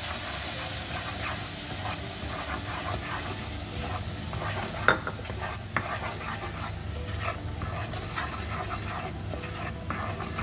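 Mango pulp sizzling in a non-stick pan on medium heat while a spatula stirs it continuously, with light scrapes and taps of the spatula against the pan and one sharper tap about five seconds in.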